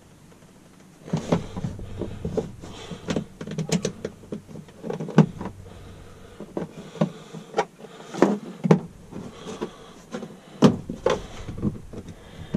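Small screwdrivers prying at a plastic push-pin trim clip on a Polaris RZR's console panel: irregular sharp clicks, taps and scrapes of metal tool tips on plastic, starting about a second in.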